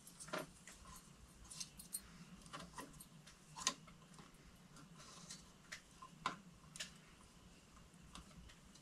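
Faint, irregular clicks and ticks of stiff copper wires being bent and handled as a porcelain light fixture's leads are joined to the junction box wires, with two slightly louder clicks a little before halfway and about two thirds through.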